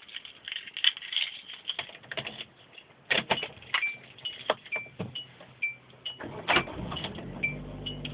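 Car keys jangling and clicking during an attempt to start a car that will not start. From a few seconds in, the car's warning chime repeats about two or three times a second, and a low steady hum comes in near the end; the engine does not catch.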